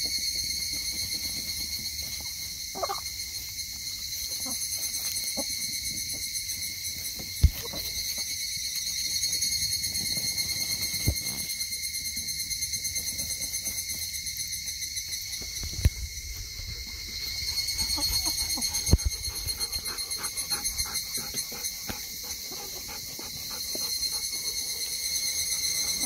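A steady, high-pitched chorus of insects shrilling, with a fast pulsing texture, swelling and easing a little at times. A few sharp knocks stand out over it, the loudest about a third of the way in.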